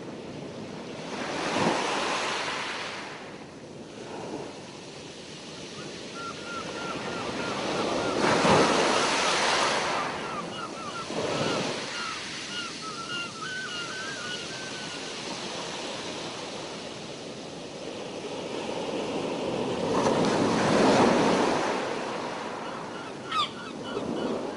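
Sea waves swelling and washing in three big surges, with wind on the microphone. A string of faint high chirps runs through the middle.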